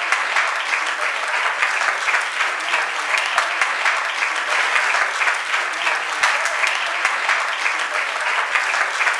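Auditorium audience applauding steadily, a dense wash of many hands clapping at once with no let-up.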